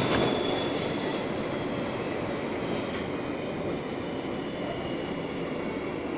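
R143 subway car running along elevated track, heard from inside the car: a steady rolling rumble of wheels on rail with a faint high whine above it.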